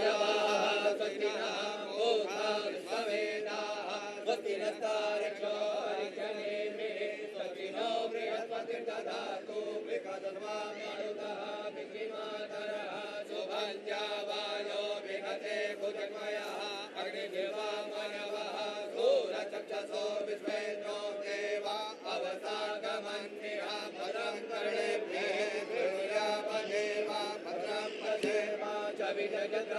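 A Hindu priest chanting Sanskrit mantras in a steady, drawn-out recitation, held on a few notes.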